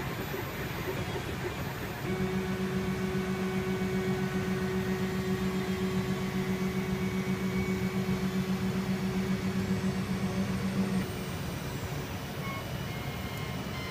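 MakerBot 3D printer running mid-print: a steady whir, joined about two seconds in by a louder, evenly pitched motor hum with a fast flutter that stops a few seconds before the end.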